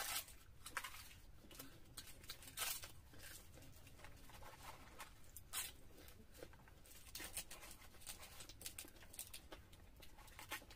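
Faint eating sounds of people eating luchi (puffed fried bread) by hand: tearing the bread and chewing, with short crackles every second or two.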